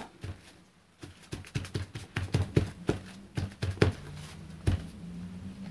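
A folded cloth dabbed and rubbed over tissue paper on a painted board, giving a quick run of soft taps and rustles, about five a second. The tissue is being pressed down to lift the still-wet paint splatters off the dry background.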